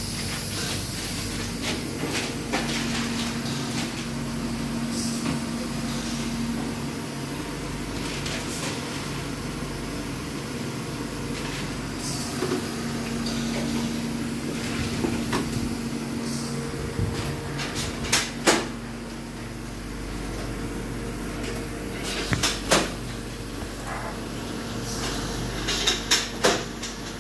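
Steelco VS6/2 steam sterilizer running with a steady mechanical hum. A few sharp knocks and clicks come over it in the second half: a pair a little past the middle, another around two thirds of the way, and a quick run of three near the end.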